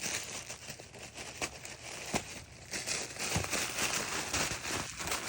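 Wrapping paper crinkling and tearing in irregular crackles as a puppy works at a wrapped present.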